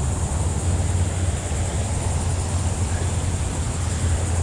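Steady rush of a small waterfall pouring over a spillway, with a deep constant rumble underneath.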